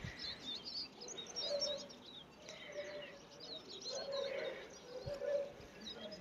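Small birds chirping and twittering in quick high notes, with a lower held note recurring about once a second.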